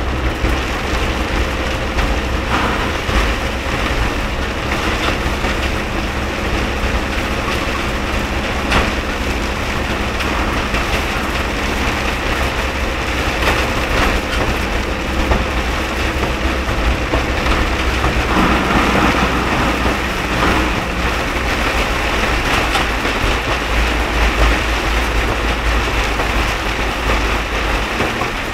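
Heavy rain falling on a moving car, with tyres hissing on the wet road over a steady low engine rumble.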